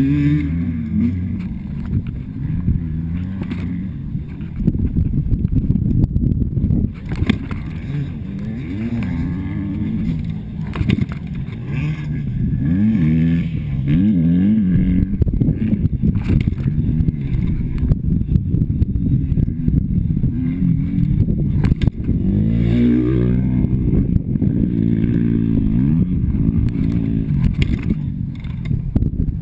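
Motocross dirt bike engine running hard, its pitch rising and falling again and again as the rider accelerates and shifts. Wind and bumps buffet the bike-mounted camera's microphone throughout.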